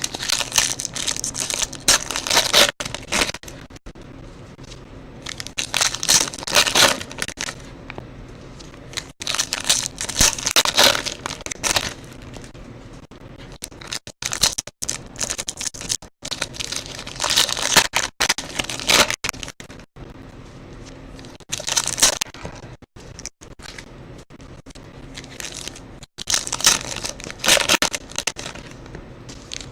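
Trading card pack wrappers being crinkled and torn open, in about seven separate bursts of crackling a few seconds apart.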